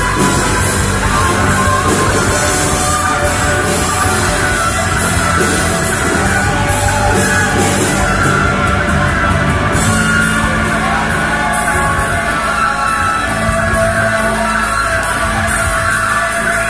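Live rock band playing loud, heavy music through amplifiers, with a singer yelling into the microphone. The low notes change about ten seconds in.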